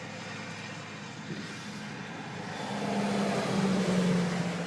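A motor vehicle passing on the highway, its engine drone swelling louder in the second half over a steady background hiss.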